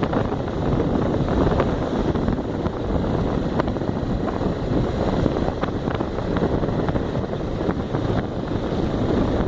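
Wind buffeting the microphone during a ride on a Honda XRE motorcycle, with the engine running under the rush of air. A few faint clicks come through.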